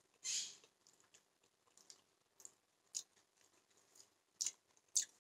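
A mouthful of noodles slurped in with a short hiss about half a second in, then quiet chewing with small mouth clicks. Two sharper clicks near the end, a fork against the bowl.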